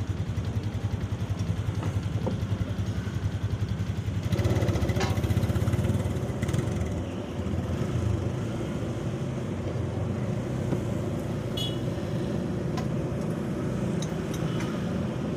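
Steady low engine hum of motor traffic, louder for a couple of seconds about four seconds in, with a few light clicks of a spoon on a plate.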